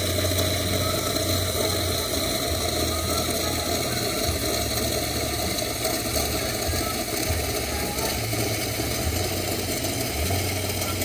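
Espresso machine giving off a steady hiss and hum, with a faint high whine and an uneven low throb underneath.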